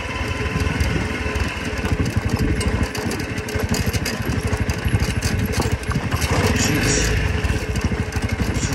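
Off-road motorcycle engine running at low speed while the bike picks its way down a steep, rocky trail, with frequent small clicks and rattles.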